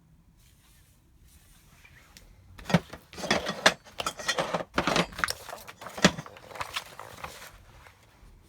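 Small metal parts clinking and rattling as they are handled, a quick jumble of clicks and jangles starting about three seconds in and dying away near the end.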